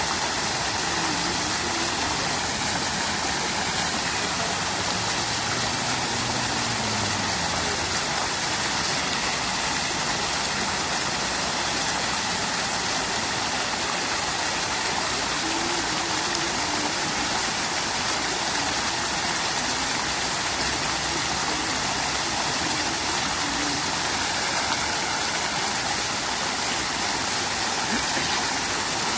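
Fountain water running and splashing in a steady, even rush.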